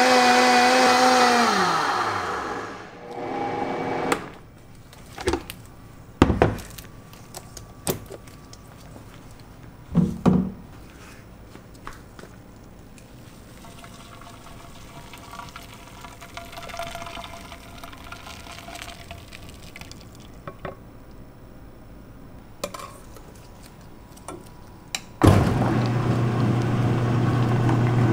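A high-speed blender runs, falls in pitch and stops about two seconds in. Scattered knocks and clatter follow, with the blended mix poured into a Frigomat gelato batch freezer. Near the end the batch freezer's motor starts suddenly with a steady low hum.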